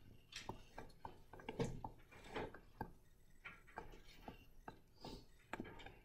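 Faint, irregular light taps and clicks, a dozen or so scattered unevenly, with some soft rustling, in a quiet room.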